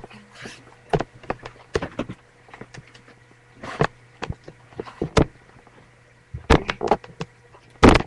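Irregular knocks, clicks and rustles of handling and movement as a webcam is carried through a dark room, over a faint steady electrical hum. The loudest bump comes near the end.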